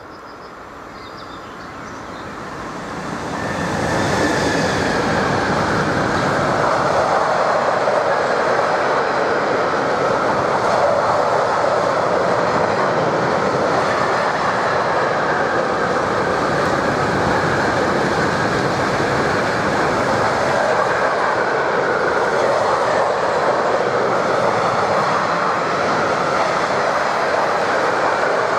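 Electric locomotive hauling a long train of enclosed double-deck car-transporter wagons along the line. It swells over the first few seconds as the locomotive draws level, with a tone that drops a little in pitch as it passes. After that comes the steady rolling rumble of the wagons' wheels on the rails.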